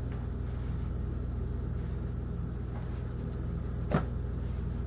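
Handling a stack of woven tapestries: a single short knock about four seconds in as the next tapestry is turned up, over a steady low hum.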